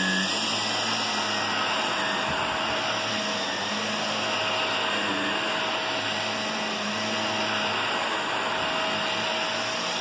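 Shark upright vacuum cleaner running steadily while being pushed over carpet: a constant motor whir and rush of air, with a faint steady whine in it.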